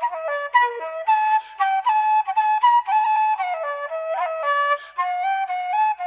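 Flute playing a traditional Irish tune solo: a quick, ornamented melody of short notes with no accompaniment.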